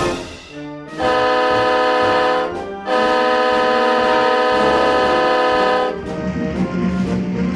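Diesel locomotive's multi-chime air horn sounding two steady blasts, the second about twice as long as the first, over orchestral theme music.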